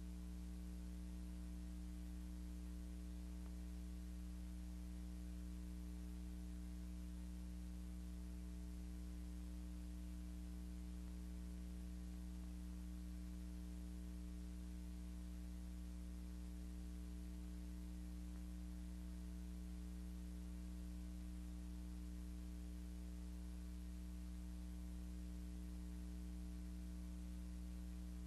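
Steady electrical mains hum with its overtones over a faint hiss, unchanging throughout, with no other sound.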